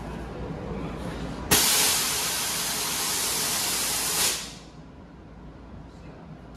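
Nitrous oxide purge valve venting: a sudden loud hiss starts about one and a half seconds in, holds steady for nearly three seconds, then cuts off. It is the nitrous system being purged to bring liquid nitrous up to the solenoids.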